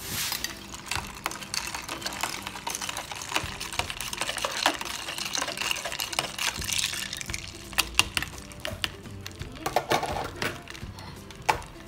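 Ice cubes clinking irregularly against a plastic pitcher while tamarind water is stirred, with the liquid swishing. Background music plays underneath.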